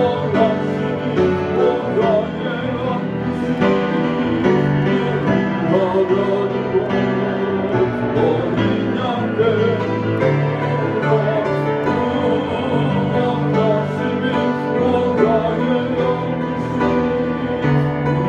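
A church hymn sung slowly with piano or keyboard accompaniment, the melody wavering in the voice range over sustained chords.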